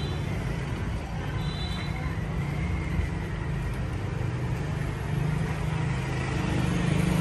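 Street traffic noise: a steady low engine hum over a general street haze, with two faint short high tones near the start, growing louder near the end.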